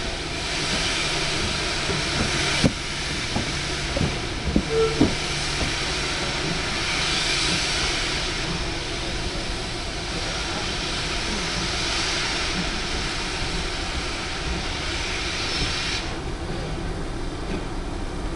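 GWR 2800 class 2-8-0 steam locomotive No. 2857 pulling away slowly, with loud hissing of escaping steam that swells and eases several times and a few sharp clanks about three to five seconds in. The hissing drops away abruptly about sixteen seconds in.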